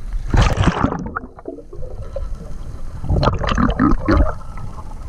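Water splashing as the camera plunges under the river surface about half a second in, then muffled underwater gurgling and bubbling past the second half.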